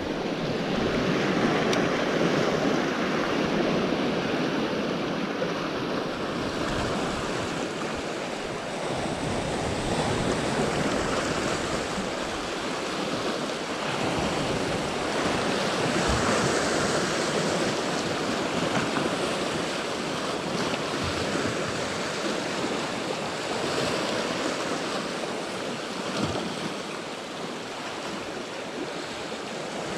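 Sea surf washing in, a steady rushing wash that swells and eases every several seconds.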